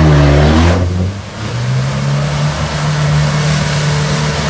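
Off-road 4x4's engine revving hard as it ploughs into a mud hole. The engine note rises and falls near the start, then holds steady at high revs while mud and water splash and spray around the vehicle.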